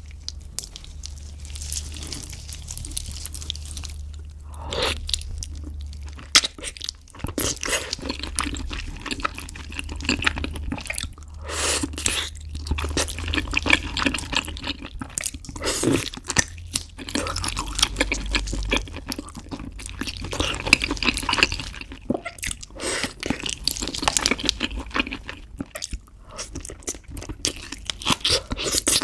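A person chewing and biting braised beef feet: a continuous run of irregular wet smacks and clicks from the mouth.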